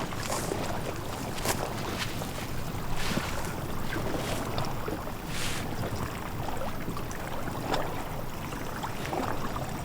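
Paddles dipping and splashing in water as a small boat is paddled along, a stroke every second or two, over a steady low rumble of water and wind.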